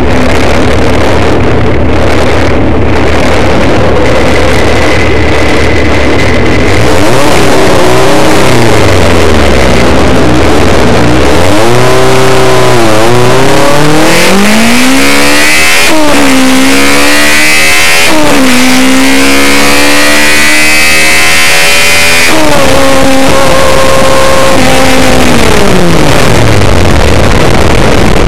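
Toyota 2ZZ-GE 1.8-litre four-cylinder engine on 52 mm individual throttle bodies, heard from inside the throttle box: a steady idle for several seconds, then revved up and down again and again, climbing higher with each rev. Near the end the revs are held steady, then fall back toward idle.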